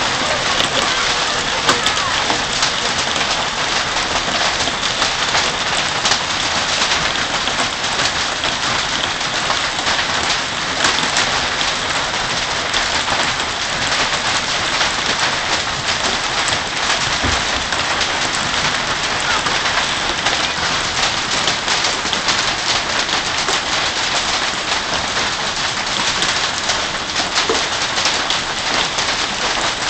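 Hailstorm: hail and rain pelting down steadily, a dense patter with many sharp ticks of hailstones striking.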